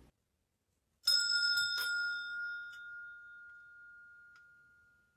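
A small bell struck about a second in, ringing with a clear tone that fades slowly over about four seconds, with a few light knocks over its ringing.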